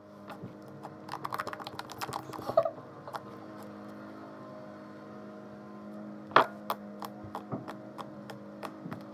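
Homemade fluffy slime (PVA glue and shaving foam) squished and pressed by hand on a tabletop, giving quick runs of small wet clicks and pops. One sharper pop comes about six and a half seconds in. A steady low hum runs underneath.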